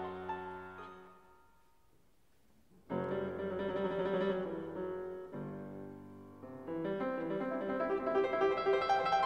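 Background music, mostly piano: one piece fades out over the first second and a half, there is a short near-silent gap, and a new piece starts about three seconds in.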